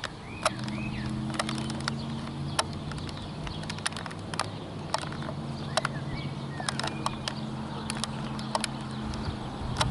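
A steady low engine-like hum that starts about half a second in and stops near the end, with a few short bird chirps and scattered sharp clicks.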